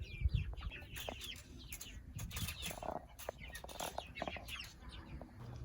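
Chickens clucking softly, with scattered short, high-pitched peeping calls among the lower clucks.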